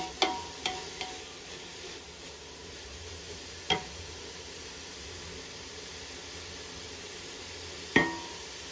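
Food sizzling in a pan, with a metal spoon clinking against the pan several times in the first second, once about halfway and loudest near the end.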